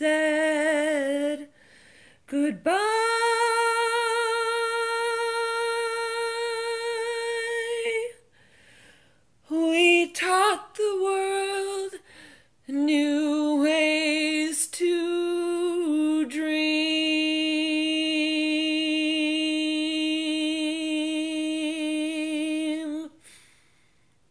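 A woman singing solo and unaccompanied, the closing phrases of a musical-theatre ballad: a long held note about three seconds in, a few short phrases, then a final note held for about six seconds that stops near the end.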